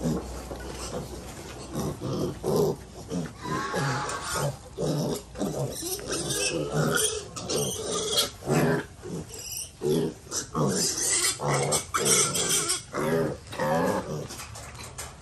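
A group of piglets grunting and squealing, many short calls following one another and overlapping.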